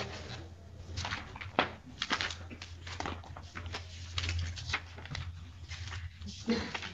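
Pages of case files being turned and shuffled: a scatter of short rustles and clicks over a steady low mains hum.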